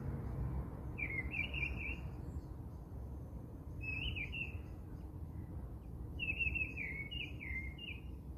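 A bird chirping in short, rapid phrases three times: about a second in, around four seconds in, and in a longer run near the end, over a steady low rumble.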